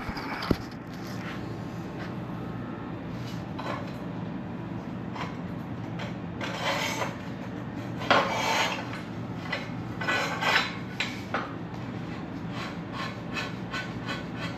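Metal scraping and knocking as an exhaust pipe is worked into place on a Ford Model T chassis, with scraping bursts through the middle and a quick run of light clicks near the end.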